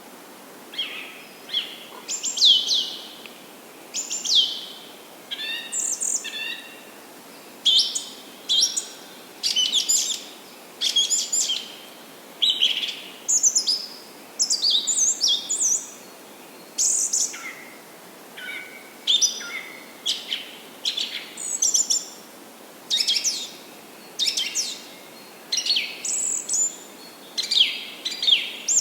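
Songbirds singing and calling: a continuous run of short, high chirps and quick downward-sweeping whistled notes, a phrase or two every second, over a faint steady background hiss.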